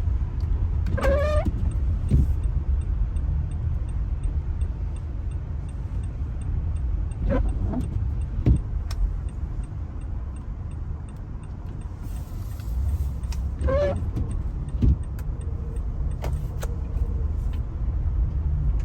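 Car cabin noise while driving slowly on a snowy street: a steady low rumble of engine and tyres, with three short squeaks and a few light clicks and rattles.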